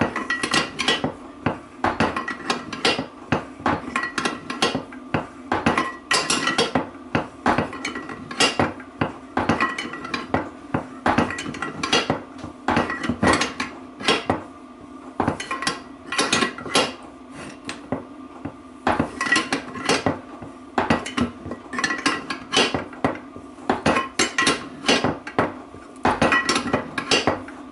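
Repeated sharp metal-on-metal strikes, a few a second with short pauses, as a steel drift drives a bearing race into a Freelander 2 rear differential's casing; each strike rings.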